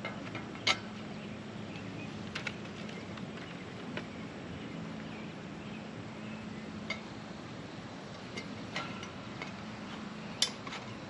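Metal parts of a portable disc golf basket clinking and knocking as they are fitted together: a handful of scattered clinks, the loudest about a second in, over a steady low background hum.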